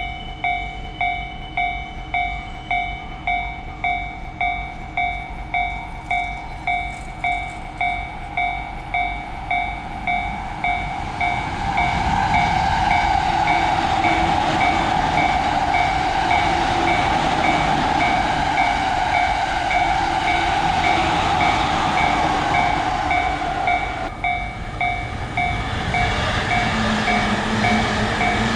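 Japanese level-crossing warning bell clanging evenly, about one and a half strikes a second. About eleven seconds in, a train passes with a loud rushing rumble of wheels on rails that covers the bell and eases off near the end, when the bell is heard again and a steady low hum sets in.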